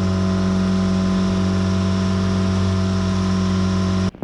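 Bangka outrigger boat's engine running under way, a loud steady drone at a constant pitch that cuts off suddenly near the end.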